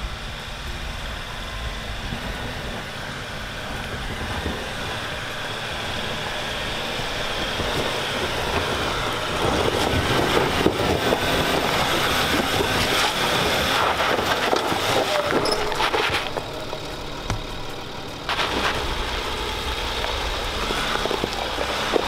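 Land Rover Discovery's engine working under load as it crawls up a steep, loose rocky climb, with tyres crunching and scrabbling over rock and gravel. It gets louder about halfway through and drops briefly a little later.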